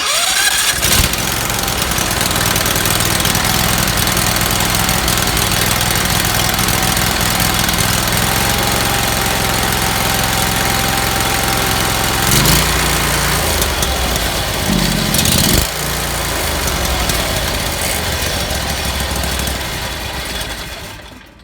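Predator 670 V-twin engine started on choke, catching at once and running steadily as a test of its newly replaced ignition switch, with brief changes in note in the middle; it stops shortly before the end.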